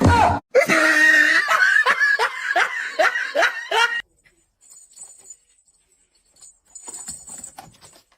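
A person laughing hard in a quick string of ha-ha bursts, about four or five a second, for a few seconds, then stopping about four seconds in.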